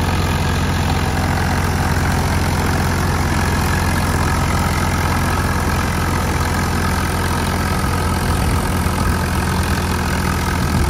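Swaraj 855 FE tractor's diesel engine running steadily under load while driving a PTO-powered straw reaper through stubble, the reaper's machinery whirring along with it. The engine note holds even without bogging down.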